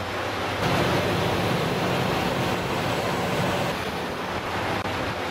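Olympian 150 kW diesel generator set running steadily, a loud rushing of engine and cooling air over a low hum; the low hum steps up in level about a second in.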